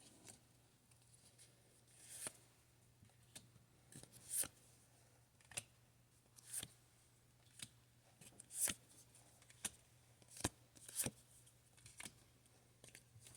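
Pokémon trading cards being flipped through one at a time. Each card makes a short, faint swish or snap against the stack, about once a second, about a dozen in all.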